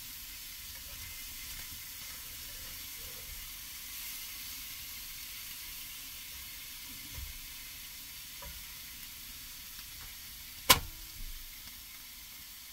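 Pejerrey fillets sizzling steadily in olive oil and garlic in a small steel pan, with a utensil stirring them. About two-thirds of the way through comes one sharp knock, the loudest sound.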